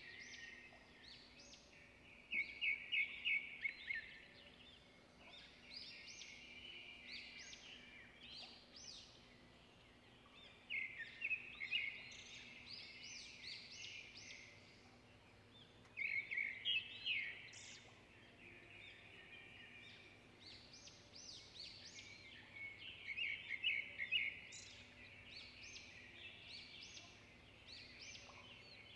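Faint small-bird chirping and twittering: repeated bouts of rapid high trills and chirps, a few seconds apart, over a faint steady hum.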